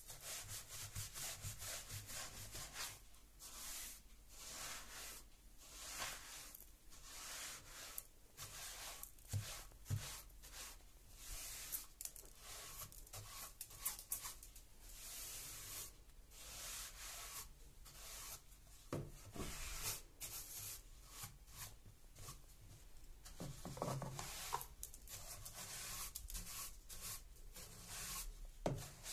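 A wide paint brush sweeping dust and grit across wooden stair treads, its bristles brushing over the wood in quick repeated strokes. A few knocks come in among the strokes.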